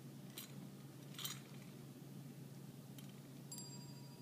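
A dog-training bell being nudged by a puppy: two faint clinks, then a light ring about three and a half seconds in whose tone lingers. A steady low hum sits underneath.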